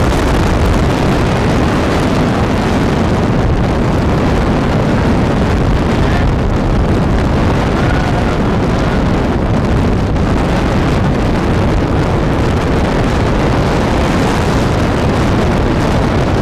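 Strong wind blowing over the microphone: a loud, steady, rumbling rush of noise.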